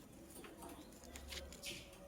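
Faint light taps and scratches from a lovebird moving about in its cage, with a brief high-pitched sound near the end.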